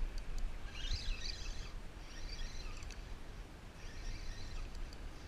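Wind rumbling on the microphone, with faint high chirps coming and going several times.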